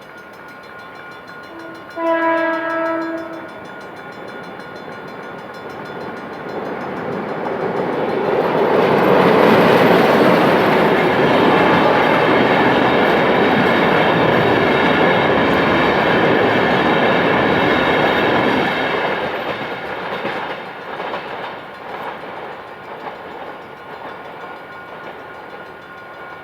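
A diesel locomotive horn gives one short blast about two seconds in. Then a diesel-hauled train builds up, passes close with loud wheel and rail noise for about ten seconds, and fades away.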